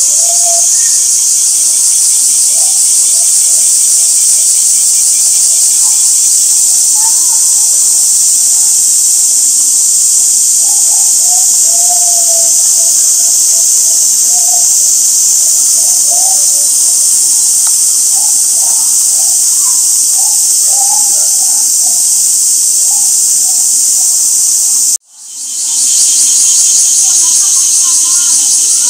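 A dense summer chorus of cicadas droning without a break, a loud high hiss, with faint human voices underneath. Near the end the whole sound drops out for a moment and fades back in.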